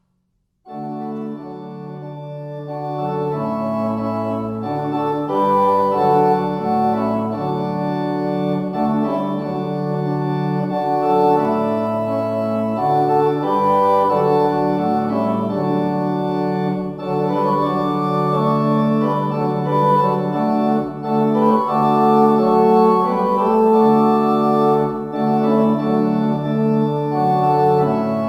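Organ playing slow, sustained chords that change every second or two, coming in suddenly about a second in.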